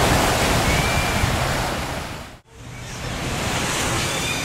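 Surf washing in and breaking, a loud steady hiss of water. It cuts out for an instant about halfway, then comes back as a softer wash of surf and wind.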